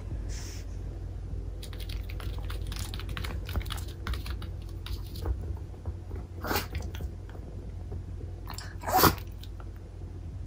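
A toy poodle sneezing sharply about nine seconds in, the loudest sound. Before that, scattered light ticks and shuffles as the dog steps about on the mat and cushion.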